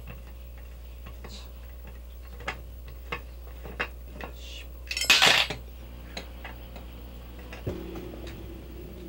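Metal parts of a brass portable camping stove being handled: a few light metallic clicks, then a louder rattling clatter about five seconds in, and a knock near the end followed by a faint ring.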